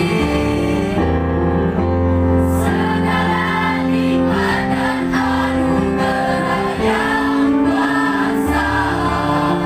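Mixed-voice school choir singing in harmony, with girls' and boys' voices holding long chords that shift every second or two.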